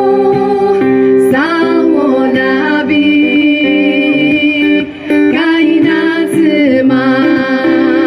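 Women singing live with acoustic guitar accompaniment, amplified through a PA, the voices holding and gliding between notes; the music dips briefly about five seconds in.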